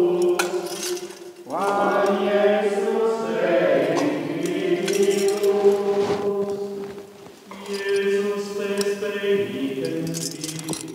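Men's voices chanting plainchant together in a reverberant stone church, holding long notes, with short pauses between phrases about a second and a half in and again around seven seconds. Light metallic clinks from the swinging censer's chains sound faintly under the singing.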